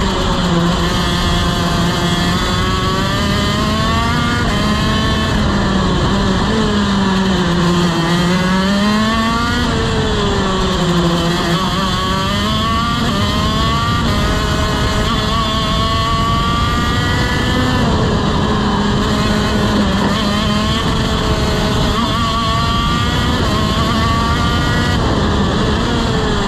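TM KZ-R1 125cc two-stroke shifter kart engine at racing speed, heard from on board the kart. Its pitch keeps rising and falling as the kart accelerates and slows through the corners.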